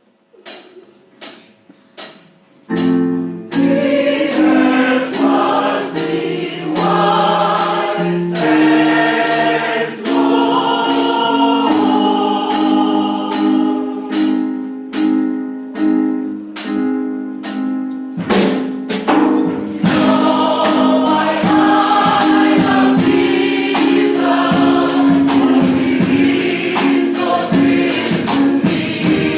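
A worship song starts with a few percussion taps. About three seconds in, the accompaniment and a group of voices come in, singing over a steady beat.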